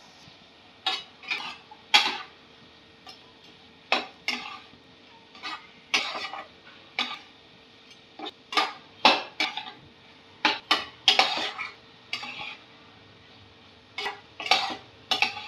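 A plastic spatula stirs and scrapes French beans mixed with crushed peanuts around a nonstick pan, giving irregular short scrapes and knocks about one or two a second.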